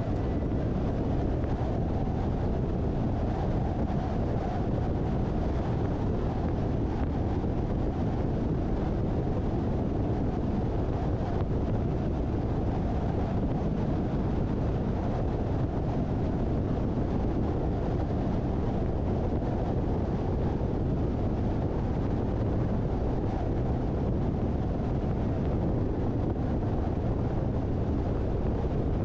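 Steady rumble of road and wind noise from a car driving at speed, an even low-pitched hiss that does not change.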